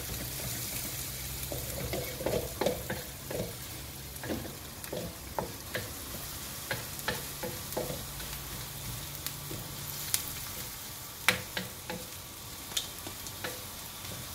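Chopped garlic and onion frying in butter in a wok, sizzling steadily, while a wooden spatula stirs them, scraping and tapping against the pan in scattered sharp clicks.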